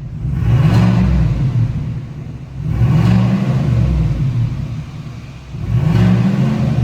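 Chevrolet Silverado High Country's gasoline V8 revved three times through an open 3-inch stainless exhaust cutout. Each rev rises and falls back to idle, about three seconds apart.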